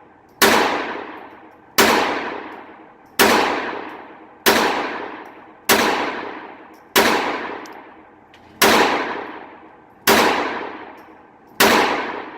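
Phoenix Arms .22 LR semi-automatic pistol firing Blazer rounds in a steady string: nine shots, about one every second and a half, each trailing off over about a second. The pistol is cycling the ammunition without a failure to feed.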